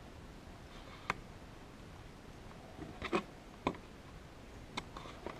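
A handful of light, scattered clicks and taps of small slot car parts being handled and pressed together while fitting an HO slot car's front end.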